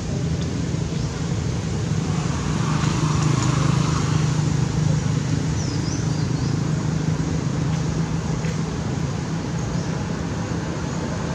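Steady low motor hum with an even hiss over it, and a few faint high chirps about three seconds in.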